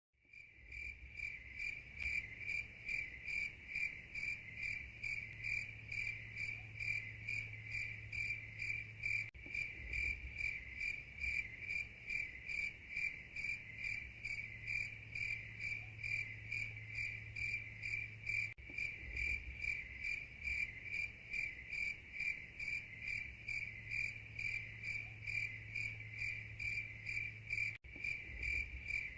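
A cricket chirping steadily, a high-pitched pulsed trill at about three chirps a second, with a brief break about every nine seconds where the recording loops.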